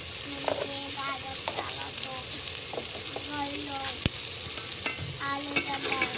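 Chicken pieces, tomatoes and onion frying in oil in a large aluminium pot, a steady high sizzle, while a slotted steel ladle stirs and scrapes the pot, knocking against it once about four seconds in.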